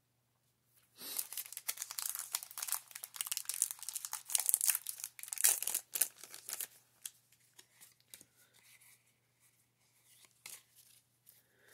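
Foil Pokémon booster pack wrapper crinkling as it is handled and the cards are pulled out of it, a dense crackle lasting about six seconds, followed by a few light clicks of cards being handled.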